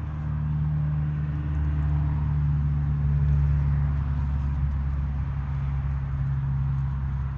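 A vehicle engine idling: a steady low hum that swells slightly a couple of seconds in, then eases back.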